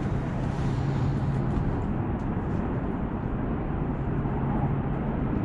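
Strong wind blowing across the microphone: a steady rushing noise with no breaks.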